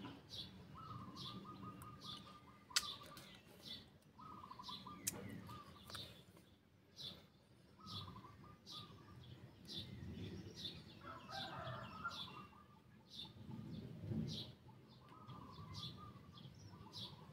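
Faint birdsong: short high chirps repeating about every half second, with a brief fast trill now and then.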